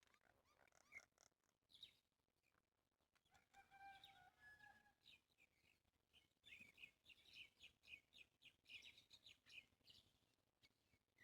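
Faint chirping of wild songbirds: a few held whistled notes about three and a half seconds in, then a quick run of short, high chirps from about six and a half to ten seconds in.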